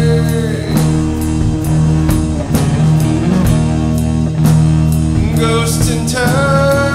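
Stoner rock recording by a guitar, bass and drums power trio, with a steady beat of drum and cymbal hits about twice a second and a held note that bends upward near the end.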